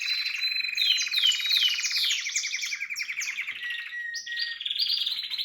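Harz roller canary singing: a long, very rapid rolling trill that shifts pitch about four seconds in, with quick descending whistled notes layered over it.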